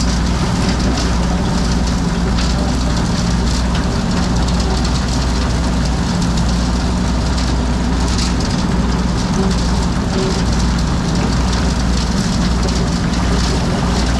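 A power drill running steadily under load, a constant motor hum over a continuous gritty cutting hiss.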